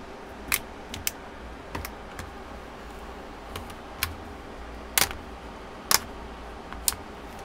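Irregular sharp clicks and snaps, about nine, the loudest two about five and six seconds in, from the plastic retaining clips of a Samsung Galaxy Tab SM-T800's back cover being pried loose and the tablet being handled on the desk.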